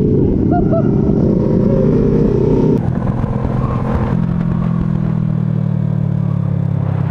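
Motorcycle engine running while riding. About three seconds in, the note drops suddenly and then runs steady and lower.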